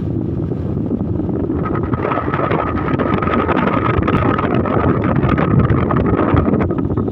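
Strong gusting wind buffeting the microphone in a loud, rumbling rush, with a steady high whistle joining about two seconds in.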